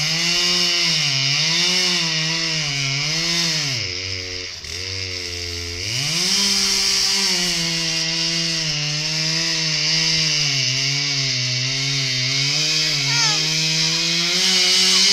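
Chainsaw cutting through a small tree trunk, its engine pitch dipping and rising as the cut loads it. About four seconds in it drops to a lower pitch for a couple of seconds, then revs back up and cuts on steadily.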